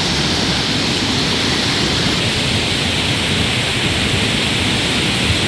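Waterfall rushing: a loud, steady, even noise of falling water that does not change.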